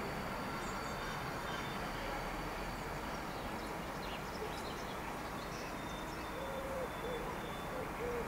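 Steady background noise, with a pigeon cooing in low, repeated notes over the last two seconds.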